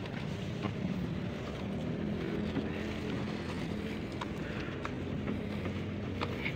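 A steady low engine hum, with soft footsteps on concrete steps every second or so.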